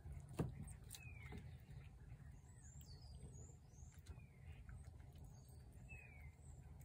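Faint bird chirps: a few short, thin calls falling in pitch, with some higher twittering in the middle, over a low steady rumble. A single sharp click about half a second in is the loudest sound.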